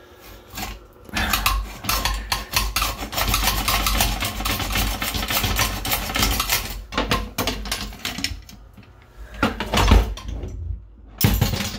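Hacksaw blade cutting a metal toilet-seat hinge bolt: quick back-and-forth rasping strokes for several seconds, a quieter pause, then a few more strokes near the end.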